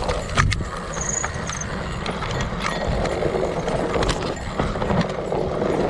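Fat-tire mountain bike rolling over a leaf-strewn dirt trail: a steady rumble of the tyre on the ground with irregular knocks and rattles from the bike over bumps. A brief high squeak about a second in.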